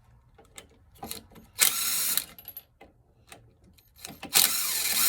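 Power tool run in two short bursts, with small metallic clicks of tools and parts in between.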